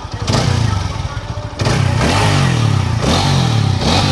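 TVS Apache RTR 4V motorcycle engine revved in repeated throttle blips, pitch rising and falling about four times, with the silencer's loose inner pipe welded in place.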